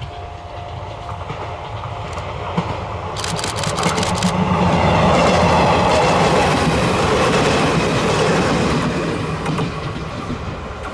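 Electric train passing close by. It grows louder to a peak about five seconds in, then fades, with a quick run of wheel clicks over rail joints a little after three seconds in.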